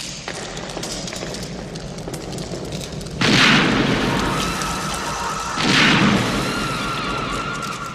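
Two handgun shots with long booming reverberation, about two and a half seconds apart. A film score runs underneath, with a sustained high note after the first shot.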